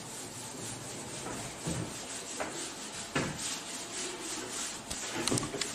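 Whiteboard duster rubbing across a whiteboard as the writing is wiped off, with a few light knocks.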